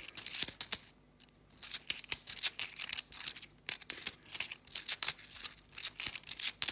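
Cupronickel 50p coins clinking and scraping against each other as they are slid one at a time off a stack held in the hand: a quick run of sharp metallic clicks, with a short pause about a second in.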